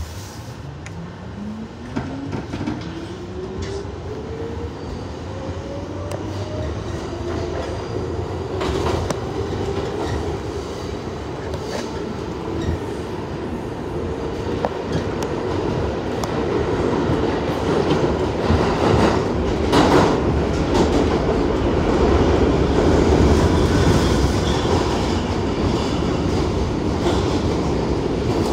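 R62A subway train pulling away, its traction motors whining and rising steadily in pitch over the first several seconds. The train then runs on at speed with a growing rumble and scattered wheel clicks over the rail joints.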